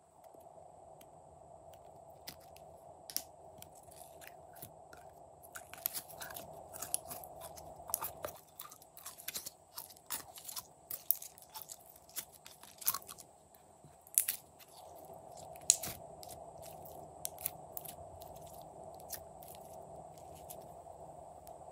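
Thick pink slime squeezed out of a plastic skull-shaped container and squished between the fingers, giving sticky crackling pops and clicks that come thickest in the middle, over a faint steady hum.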